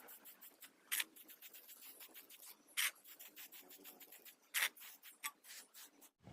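Scratchy rubbing and scraping by hand on a hard surface, a rapid string of light strokes with three sharper scrapes about a second in, near three seconds and past four and a half seconds.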